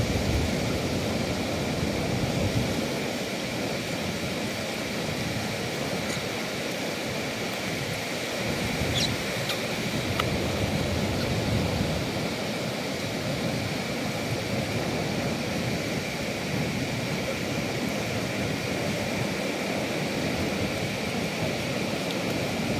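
Steady rushing noise of wind on the microphone and low surf along the shore.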